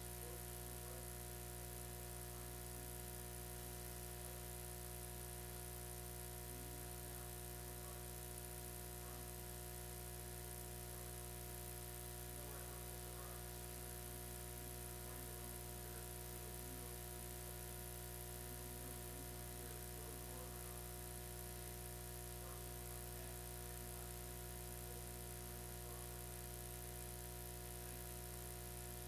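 Steady electrical hum and buzz: a set of constant tones over a faint hiss, unchanging throughout, with faint wavering sounds buried beneath it.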